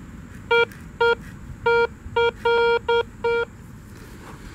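Metal detector giving about seven short beeps at the same steady pitch, one held a little longer, as its search coil passes over a target in a loose pile of dug-up dirt.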